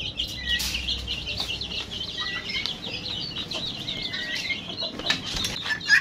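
Ducklings peeping: a dense, unbroken run of short, high peeps. A few knocks come near the end, the loudest just before it.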